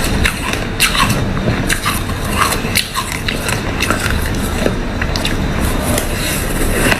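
Ice being bitten and chewed close to the microphone: a dense, irregular run of sharp crunches and crackles.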